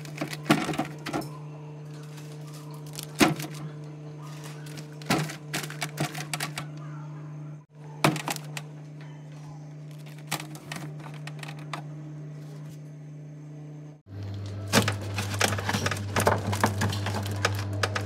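Food packages, plastic bags and a jar handled and set down on the plastic shelves and drawer of a fridge: irregular clicks, knocks and crinkles in bursts, over a steady low hum.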